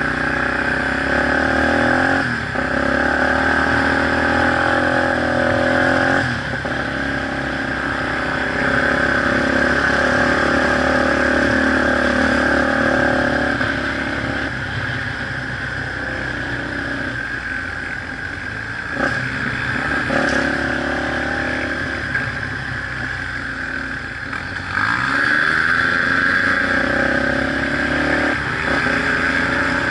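Off-road vehicle engine running hard over a rough dirt track, heard from on board. Its pitch steps up and down several times with throttle and gear changes, with one long drop in revs late on, over a steady hiss.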